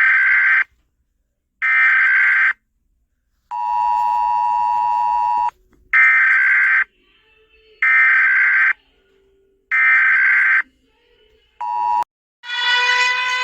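Emergency Alert System tones: harsh digital data bursts about a second long, each followed by about a second of silence, with a two-second two-tone attention signal after the first pair and a brief burst of it near the end. A steady siren tone with many overtones starts about a second before the end.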